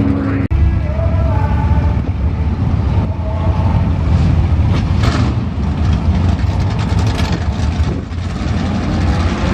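Drag-racing engines idling loudly at the starting line, a steady rough low rumble with no revving.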